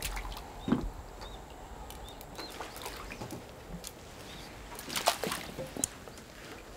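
Hooked crucian carp splashing at the water's surface as it is drawn in on a float rod, with scattered small splashes and knocks and a louder burst of splashing about five seconds in.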